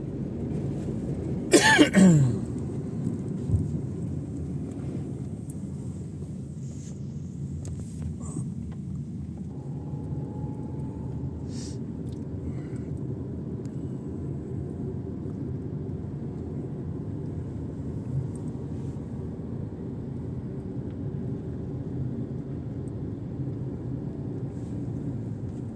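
Steady low drone of a car's engine and tyres heard from inside the cabin while driving. About two seconds in, one short loud vocal sound that falls in pitch, like a cough.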